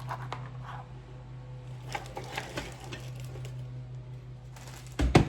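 Parts of a string trimmer being handled during assembly: light rustling and small clicks, then one sharp knock about five seconds in, over a steady low hum.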